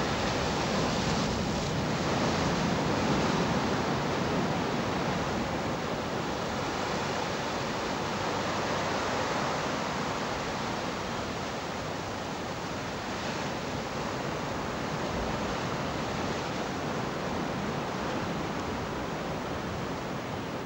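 Sea waves and swell washing in, a steady rushing noise that swells a little a few seconds in and then eases off.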